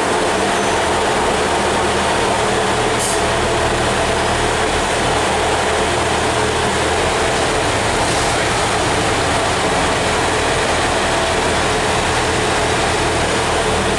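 Class 142 Pacer diesel multiple unit's underfloor diesel engine running steadily as the unit creeps up to couple to another train: a constant low drone under an even hiss, with no coupling clash yet.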